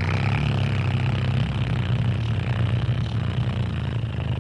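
A low, steady drone with a rasping hiss above it, part of a sound-healing recording.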